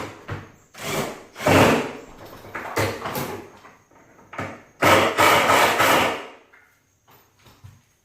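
A replacement window being pushed and shifted in its opening: three rough bursts of scraping and rubbing against the frame, with a few knocks between them.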